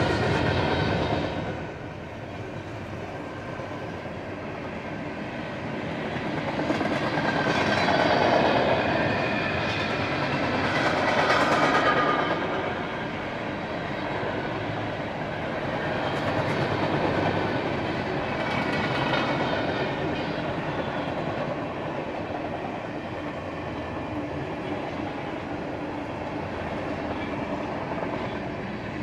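Norfolk Southern mixed freight train rolling past: the continuous noise of freight cars' wheels on the rails, growing louder for a few seconds in the middle as the cars go by.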